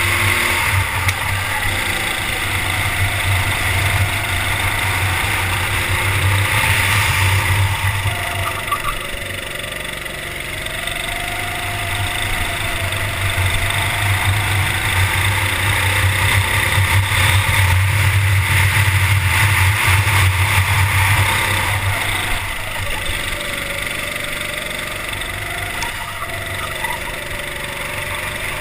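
Onboard sound of a racing kart's engine running at speed, its pitch rising and falling as the driver accelerates along the straights and lifts through the corners.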